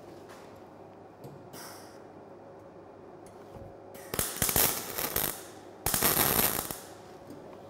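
MIG/MAG welding arc crackling in two short bursts, each about a second long, with a brief gap between them. These are tack welds fixing the steel struts to the crossbar of the frame.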